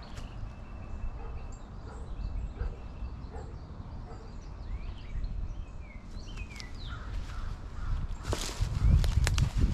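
Birds chirping with short rising and falling notes in woodland. In the last second or two come footsteps on dry leaf litter and brush, the loudest sound here.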